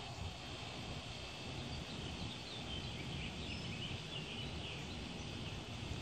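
Songbirds chirping a quick run of short, high, twittering notes through the middle, over a steady low background rumble.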